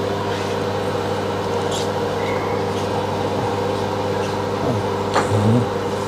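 Samsung MG30T5018 grill microwave oven running in its grill-fry combination mode: a steady electrical hum with its fan, and a couple of faint ticks about two and five seconds in.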